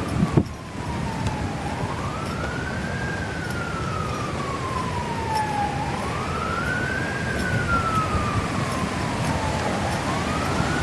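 A siren wailing, its pitch rising quickly and falling slowly in a cycle that repeats about every four seconds. A short knock comes right at the start.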